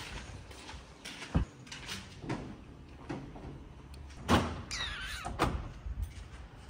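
A few separate knocks and clunks, such as things handled around a parked car. The loudest comes a little past four seconds in.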